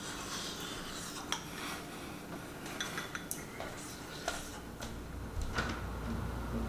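Metal spoon clinking against a ceramic bowl, a few light, separate clicks.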